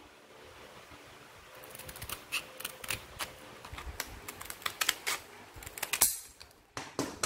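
Steel scissors cutting along a strip of cloth-backed P100 sandpaper: an irregular run of sharp clicking snips that starts about a second and a half in.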